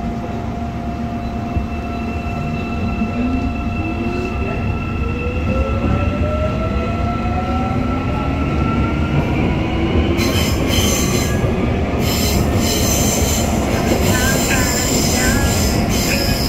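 Busan Metro 1000-series electric multiple unit pulling away, heard from inside the car. The whine of its IGBT VVVF inverter and traction motors rises steadily in pitch as the train accelerates. From about ten seconds in, a high hiss and squeal of the wheels on the rails joins it.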